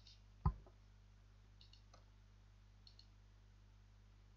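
Computer mouse clicking faintly a few times, some as quick double clicks, with one louder low thump about half a second in, over a faint steady low hum.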